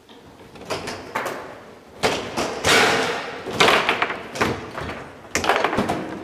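Foosball rally on a Garlando table: an irregular string of sharp clacks and knocks as the ball is struck by the hard plastic men and hits the walls, with rods spun and slammed by the players, busiest from about two seconds in.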